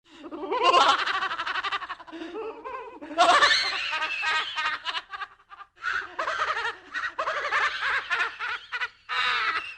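Laughing-ghost sound effect: a voice laughing in pulsed runs, with short breaks about five seconds in and near the end.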